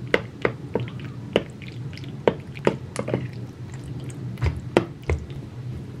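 Metal spoon scooping pasta shells in tomato sauce from a pot into a plastic bowl: about a dozen sharp, irregular clinks and taps with wet squishing, over a steady low hum.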